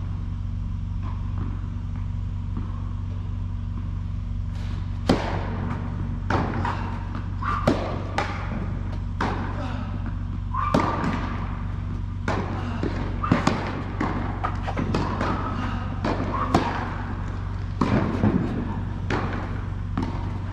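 Tennis rally on an indoor hard court: sharp pops of the ball off racket strings and the court, irregularly spaced, starting about five seconds in, over a steady low hum, echoing in a large hall.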